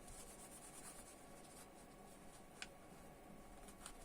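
Faint rubbing and scratching at dried-out old thermal paste, which is hard to clean off, with one sharp tick about two and a half seconds in.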